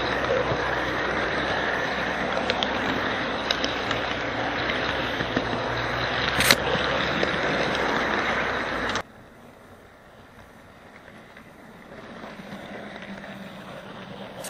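HO-scale model train running along its track, heard from a camera riding on it: a steady rolling noise of wheels and motor, with a sharp click about six and a half seconds in. About nine seconds in it cuts off suddenly to a much quieter steady running noise.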